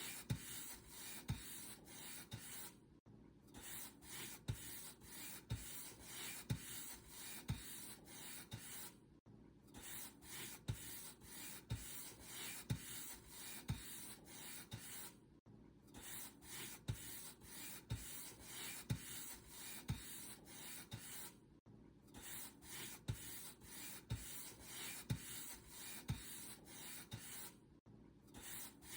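Paintbrush bristles brushing across a surface in repeated strokes, about one a second, with a short break roughly every six seconds.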